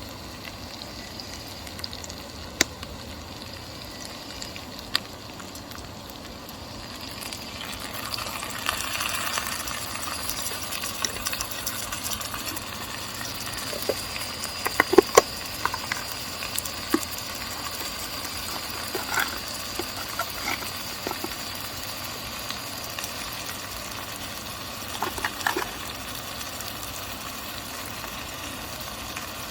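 Food frying and sizzling in a pan over a wood fire, with a few sharp clicks and knocks, the loudest cluster about halfway.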